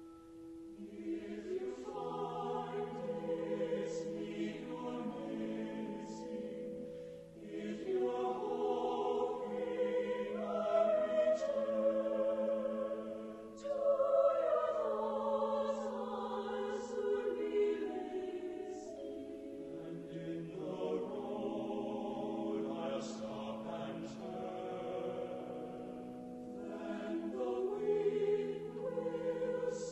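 Slow choral music: a choir singing long held notes over a sustained low note.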